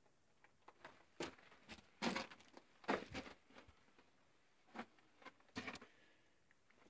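About half a dozen short scuffs and crunches, irregularly spaced, of someone moving over the rocky, gravelly floor of a mine tunnel.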